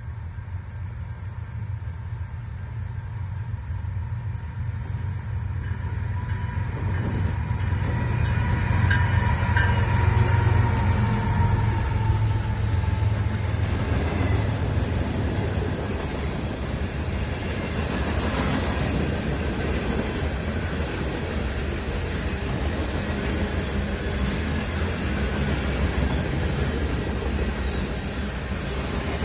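CN freight train passing: the lead diesel locomotives run by, loudest about ten seconds in, then boxcars and covered hoppers roll past with steady wheel-on-rail noise and a brief sharper screech about eighteen seconds in.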